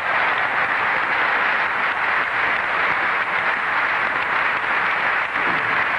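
Large audience applauding, a dense, even clatter of many hands.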